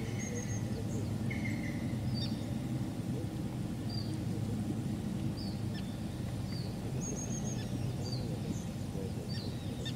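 Outdoor background of scattered short bird chirps and whistles over a steady low rumble.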